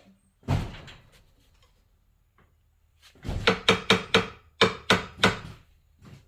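Hand hammer striking a steel punch to drive a pin back into the tractor's shift lever linkage: a single blow, then about seven quick ringing metal blows about three seconds in.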